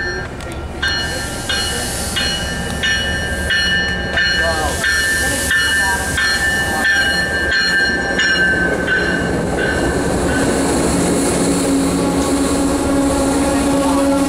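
MBTA commuter rail train pulling into a station platform and rolling slowly past, its bilevel coaches running over the rails. A bell rings about one and a half strokes a second and stops about nine and a half seconds in. A steady low hum then sets in as the coaches pass.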